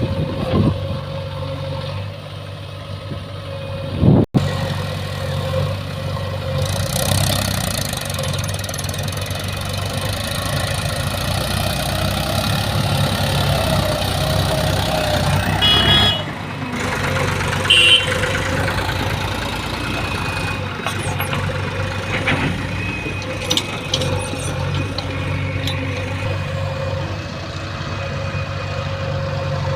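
Diesel engine of heavy machinery running steadily, with abrupt breaks in the sound about four seconds in and again about sixteen seconds in.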